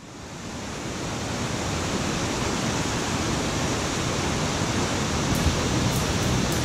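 Steady hiss of falling water fading in over the first couple of seconds, then holding even. Faint high ticks, about three a second, come in near the end.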